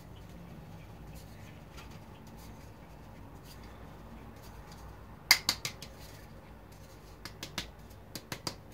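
Flour and starch being sifted through a metal mesh sieve resting on a steel mixing bowl: a run of sharp metallic taps and clicks from about five seconds in, as the sieve is knocked by hand to shake the flour through.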